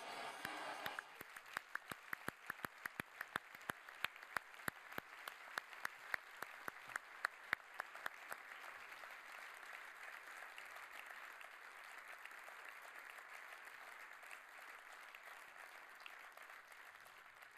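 Audience applauding in a hall, starting about a second in as a short musical sound ends. Sharp individual claps stand out over the first half, then the applause settles into an even patter that slowly fades near the end.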